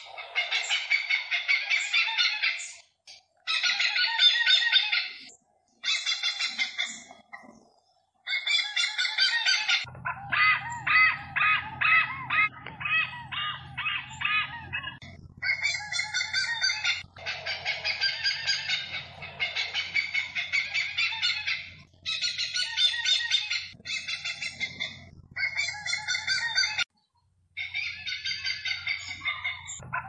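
Hornbills calling: runs of rapid, harsh, honking notes repeated in bursts of a few seconds with short breaks between, with a low steady hum underneath for much of it.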